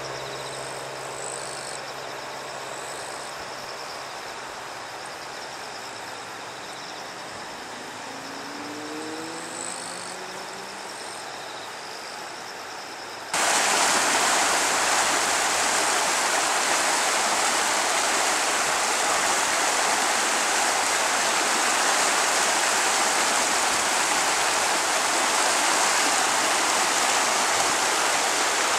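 Loud, steady rushing of water, a stream running high after a typhoon, that cuts in abruptly about halfway through. Before it there is a quieter outdoor background with faint high chirps.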